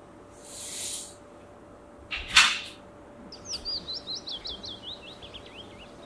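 Curtains swished open along their rail twice, a softer swish then a short loud one, followed by birds chirping in a quick run of high, falling notes.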